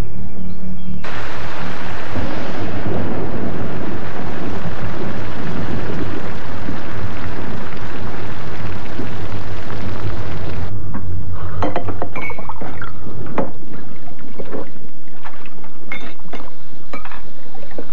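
Steady rushing storm-like noise that starts suddenly about a second in and cuts off near eleven seconds, followed by scattered knocks and clicks.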